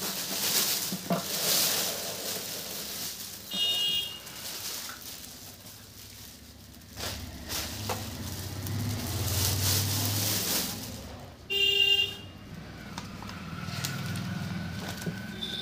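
Plastic packaging crinkling as a speaker is unwrapped, later paper rustling as the manual is handled. Two brief horn-like toots cut in, a short one about four seconds in and a louder one about three-quarters of the way through, with a low rumble between them.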